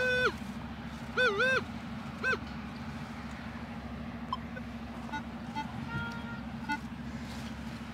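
Minelab Equinox 600 metal detector sounding target tones as its coil sweeps over a shallow scrap of aluminium foil: one held beep, then two warbling beeps and a short beep in the first two and a half seconds, followed by only faint chirps.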